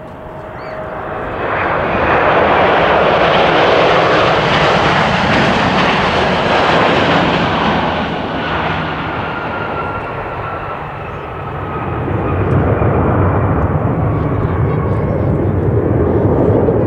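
Boeing 767-300ER's twin jet engines at takeoff power, the roar swelling as the jet passes close, with whining tones falling in pitch. A deeper low rumble builds again about twelve seconds in.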